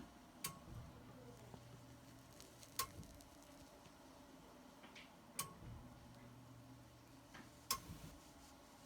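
Sharp ticks repeating about every two and a half seconds, four in all, with a couple of fainter clicks between them, over a quiet background; a faint low hum comes and goes.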